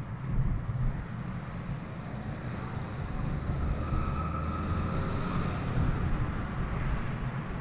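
Car driving along a city street, heard from inside the cabin: a steady low engine and road rumble with tyre noise. About halfway through, a steady high tone comes in and grows louder.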